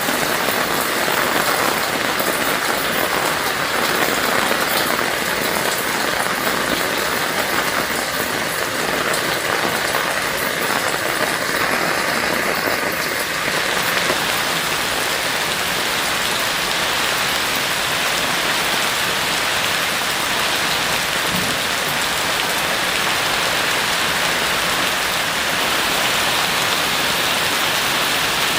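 Heavy rain falling steadily: a dense, even hiss of countless drops, its tone shifting slightly about halfway through.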